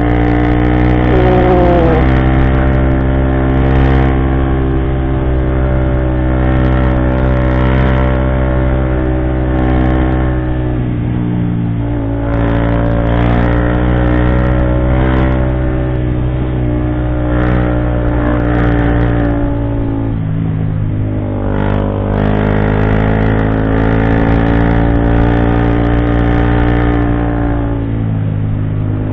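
Motorcycle engine pulling steadily up a climb at a constant note. The note drops off briefly about a third of the way in and again about two-thirds through, then picks back up as the throttle is opened again.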